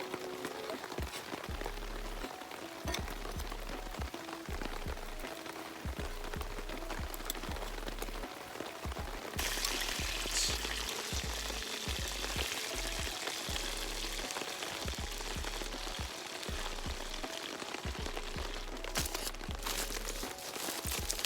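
Steady rain falling, with a campfire crackling and giving off a few sharp pops. The rain hiss grows louder and brighter about nine seconds in.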